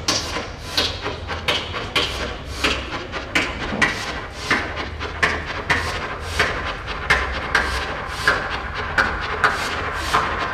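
Electronic drum pattern from littleBits Synth Kits played as analog drum synthesizers and sequenced by a Lego step sequencer. It is a run of short hissy noise hits, about one and a half a second and unevenly spaced, over a low pulsing bass.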